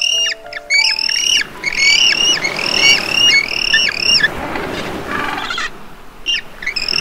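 Seabirds calling in a rapid series of short, pitched calls, each dropping in pitch at the end, about three a second. The calls break off after about four seconds and start again just before the end.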